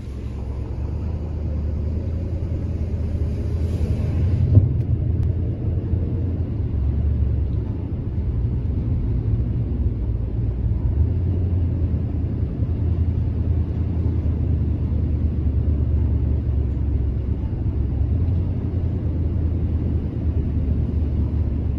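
Car driving along a flooded, rain-soaked road, heard from inside the cabin: a steady low rumble of engine and tyres. About four seconds in, a brief rise in hiss ends in a single thump.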